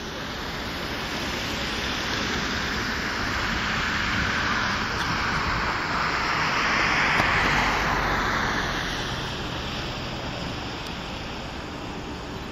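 Airbus A330-200 twin jet engines at takeoff thrust during the takeoff roll, a broad roar that swells to its loudest about seven seconds in and then eases a little.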